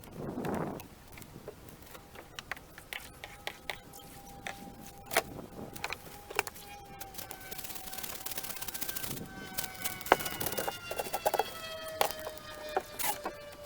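Saker mini electric chainsaw running as it cuts into wood. Its motor whine starts about two seconds in and sags slowly in pitch under load, with many sharp clicks and knocks from the wood and branches.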